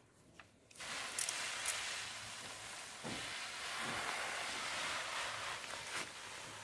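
Manual hand-pump pressure sprayer misting liquid from its wand nozzle: a steady hiss that starts about a second in.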